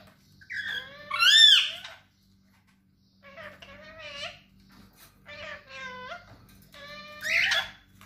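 Pet parrot vocalizing: a string of high-pitched calls in four bursts, loudest about a second and a half in and again near the end.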